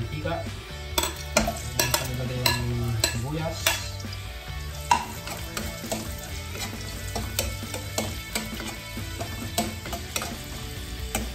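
Chopped onion and garlic sizzling as they fry in oil in a wok, with a metal spoon scraping and clinking against the pan as they are stirred.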